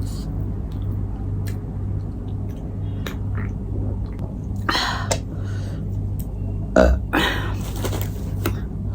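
Close-up eating sounds of a person eating spicy instant noodles and grilled chicken: small wet chewing clicks throughout, and two longer breathy, noisy mouth sounds about five and seven seconds in, with a low thump just before the second. A steady low hum runs underneath.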